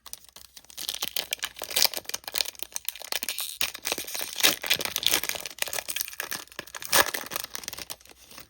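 Foil trading-card pack wrapper being crinkled and torn open by hand, a dense run of crackling with its loudest crackles about halfway through and near the end.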